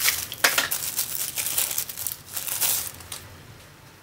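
Cardboard bearing box being opened by hand, with packaging crinkling and tearing in irregular rustles as the bearing race is taken out; it stops about three seconds in.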